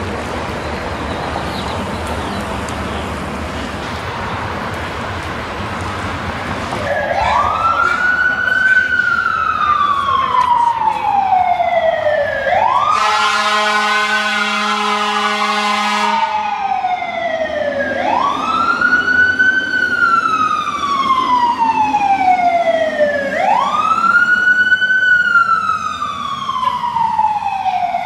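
Street traffic noise, then from about seven seconds in a fire engine's siren wailing, each wail rising quickly and falling slowly, about every five seconds. Midway, a steady horn blast lasts about three seconds.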